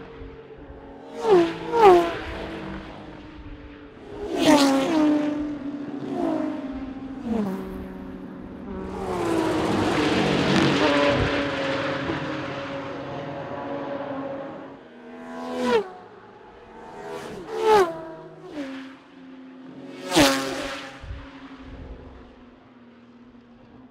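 Historic racing cars at full throttle passing one after another, about eight quick pass-bys whose engine notes drop in pitch as each car goes by. A longer, rougher pass comes in the middle. A steady engine drone from cars further off runs underneath.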